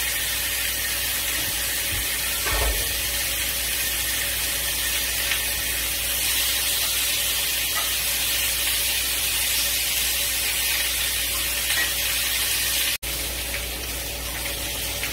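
Pork chops and red potatoes sizzling in cast iron skillets on a gas range: a steady high hiss, with a light knock about two and a half seconds in and a momentary break near the end.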